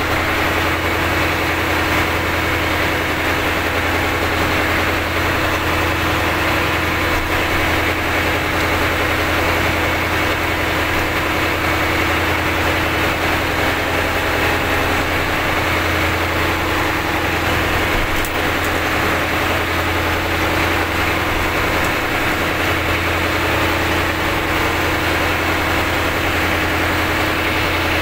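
Fishing boat's inboard engine running steadily while towing a disabled purse seine boat, an even low hum that holds the same pitch throughout.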